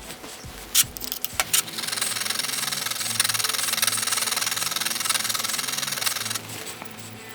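A 13B rotary apex seal being filed down to fit its rotor groove, after it was found too tight: a couple of sharp clicks of the seal being handled, then a steady metal-on-file rasping for about four and a half seconds that stops suddenly.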